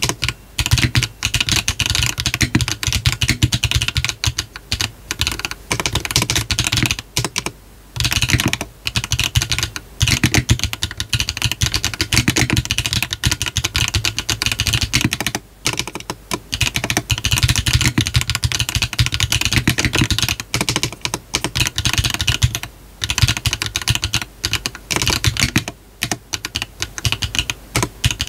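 Steady, fast typing on a GDK DK1-TKL custom mechanical keyboard with a brass bottom case, fitted with HMX 幻紫 switches on a 1.6 mm PCB with no foam and hard wide gasket mounting, under cherry-profile PBT keycaps. The clacking breaks off briefly three times, about a quarter, half and three quarters of the way through.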